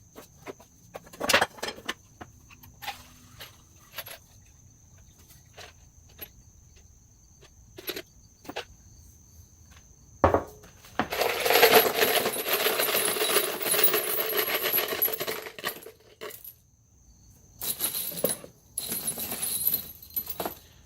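Metal nuts and bolts clinking against each other as they are taken out of a container of penetrating sealer: scattered single clinks at first, then about five seconds of dense metallic rattling from a batch of hardware handled together, and a shorter rattle near the end.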